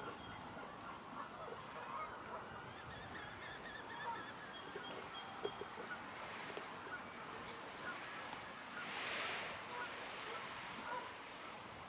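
Birds calling outdoors: goose-like honking among quicker, high, repeated chirps. A brief rush of noise comes about nine seconds in.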